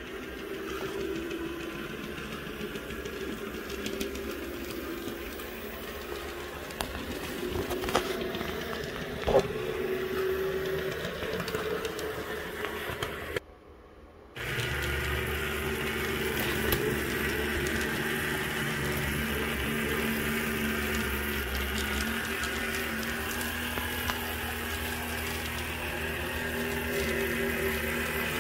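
Model streetcars running on track under overhead wire, with the steady hum of their small electric motors and the rolling of their wheels. There are a couple of sharp clicks around eight and nine seconds in. The sound drops out briefly about halfway through, then comes back with a fuller, steadier hum.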